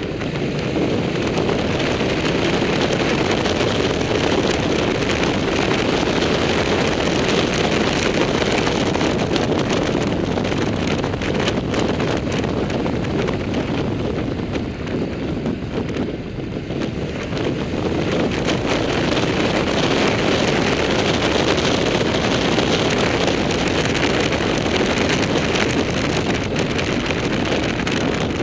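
Wind rushing over the microphone of a motorcycle-mounted camera at riding speed, with the motorcycle's running and road noise underneath. It eases for a moment about halfway through, then picks up again.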